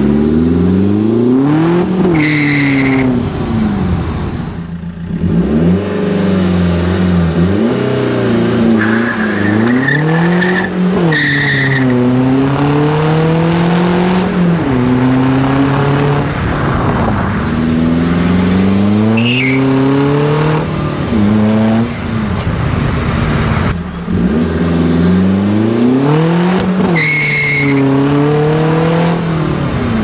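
Fiat Doblò 1.3 Multijet four-cylinder turbodiesel, tuned to about 150 hp with a big Garrett 1549 turbo at 2.3 bar, pulling hard through the gears: the engine note climbs and then drops at each gear change, several times over. Short high whistles come at a few of the gear changes.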